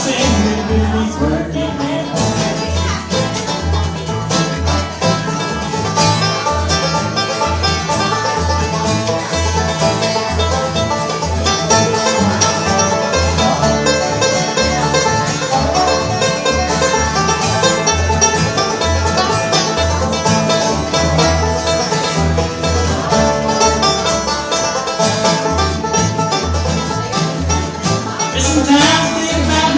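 Live bluegrass band playing: banjo, acoustic guitar, dobro and upright bass, with the bass plucking a steady beat underneath.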